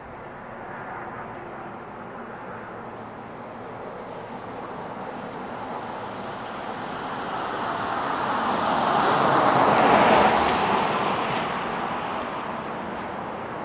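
A road vehicle passing by: a smooth rushing noise that swells slowly to its loudest about ten seconds in, then fades away.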